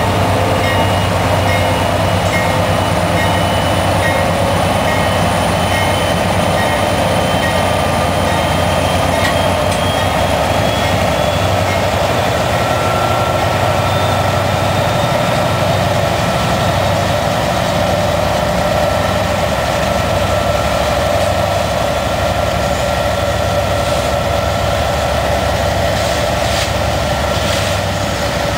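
Diesel locomotives of a CSX coal train passing close by: a loud, steady engine drone with a high whine over it. Near the end the coal hoppers begin rolling past, with a few sharp wheel clicks.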